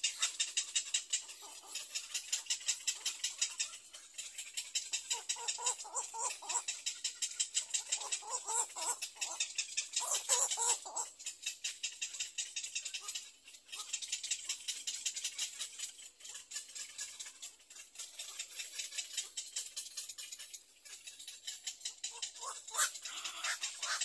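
A fast, even ticking of animal calls, about ten ticks a second, runs throughout, with bouts of louder, harsher, lower calls about five to eleven seconds in and again near the end.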